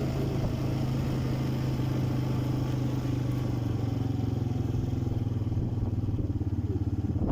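Quad bike (ATV) engine running steadily under way, a low droning note. A high hiss of wind and road noise over it fades out about halfway through.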